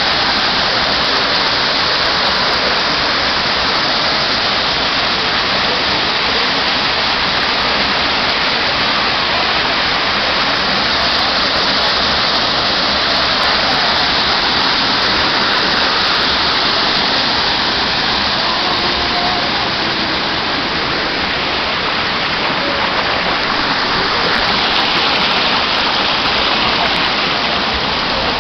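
Loud, steady rush of a waterfall, an even sound of falling water with no breaks.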